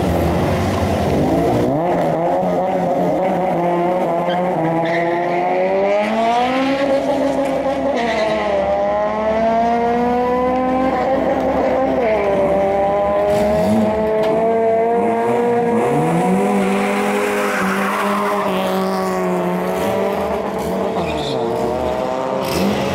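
Honda Integra's four-cylinder engine revving hard, its pitch sweeping up and falling back several times, with tyre squeal as the front wheels spin in a burnout.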